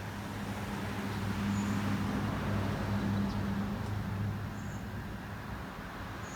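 A motor vehicle's engine giving a low, steady hum that grows louder for a couple of seconds and then eases off.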